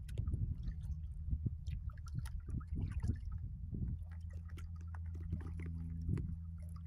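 Kayak paddle strokes splashing and dripping in calm lake water over a low rumble. About four seconds in, a steady low hum joins.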